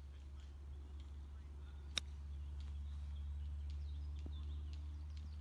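A single sharp crack of a golf club striking a ball about two seconds in, over a steady low rumble.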